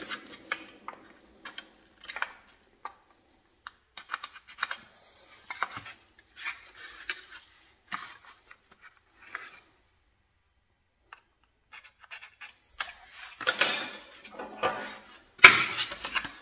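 Sheet-metal cover strip and hand tools being handled on a wooden board: scattered light clicks, clinks and scraping of metal, with two louder stretches of scraping near the end.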